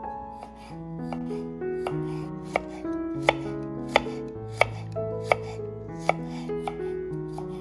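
Knife chopping on a cutting board in sharp, single strokes about every two-thirds of a second, loudest in the middle, over soft background piano music.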